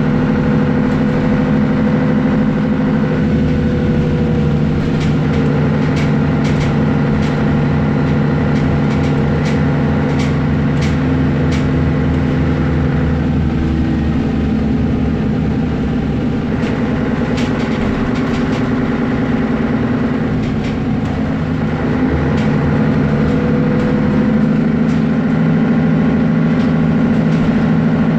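Mercedes-Benz Citaro O530G articulated bus's diesel engine running as the bus drives. The engine note shifts several times, with scattered light clicks and rattles.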